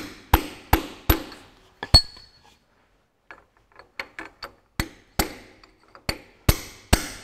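Sharp metal-on-metal taps, about two or three a second, on the crankshaft timing sprocket and drift tube of a Ferguson TEA20 engine during fitting of a new timing chain. About two seconds in the taps stop and there are a few light clinks from the chain being handled, then the taps start again.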